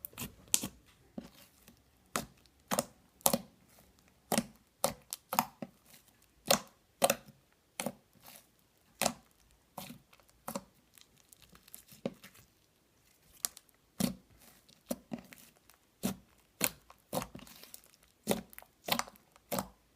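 Slime squished and pressed by hand, giving short, sharp pops and clicks at an irregular pace of about one or two a second.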